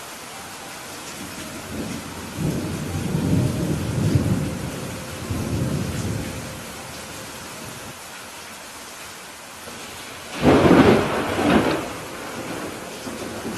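Steady rainfall during a thunderstorm: a low rolling rumble of thunder swells and fades over a few seconds, then a louder, sharper thunderclap comes about ten seconds in.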